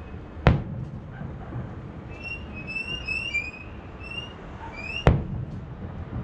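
Two distant aerial firework shells bursting, each a sharp boom, one about half a second in and the other about five seconds in, over a steady low rumble of city background noise.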